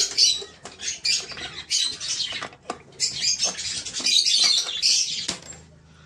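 Small pet parrots in an aviary chattering and chirping in a dense, high-pitched stream. Sharp metal clicks from a key working a small brass padlock on a wooden breeding box cut through it. The chatter thins out and goes quiet near the end.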